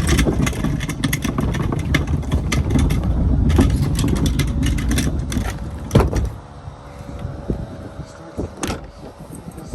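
Heavy rumbling and rattling of a vehicle moving, with many knocks, ending in a loud bang about six seconds in. After that it goes quieter, with a few clicks.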